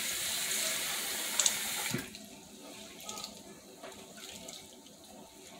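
Kitchen faucet running into a bowl of small dried fish being rinsed, then shut off about two seconds in. After that come quieter small splashes as hands squeeze and stir the wet fish in the bowl of water.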